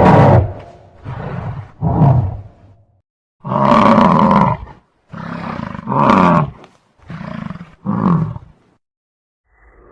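Cartoon Tyrannosaurus rex roar sound effects: a string of about eight short, rough roars separated by brief gaps, alternating softer and louder. The longest comes a few seconds in, and the roars stop about a second and a half before the end.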